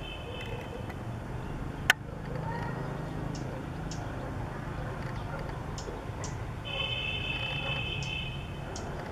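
Steady outdoor background rumble, broken by one sharp click about two seconds in. Near the end a high, steady buzzy tone lasts over a second, and a few faint short high chirps come and go.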